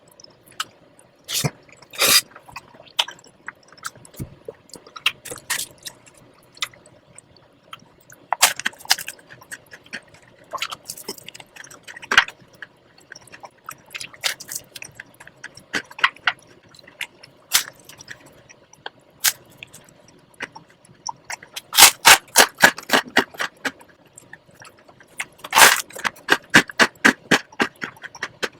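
Close-up eating sounds: scattered sharp mouth clicks and chewing, with two runs of quick clicks near the end.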